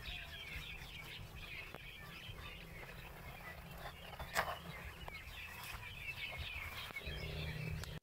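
A dense chorus of small birds chirping continuously over a low rumble, with one sharp crack about four seconds in.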